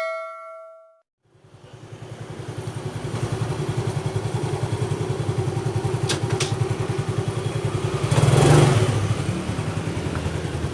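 A ringing chime fades out, then a motorcycle engine fades in and runs with an even pulsing beat, briefly louder around eight seconds in.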